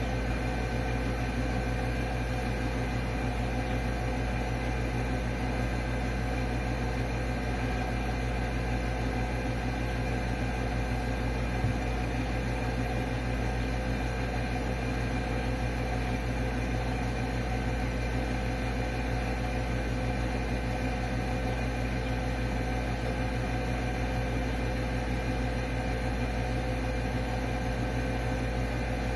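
Steady mechanical hum with several held tones, unchanging throughout, with one faint tick about twelve seconds in.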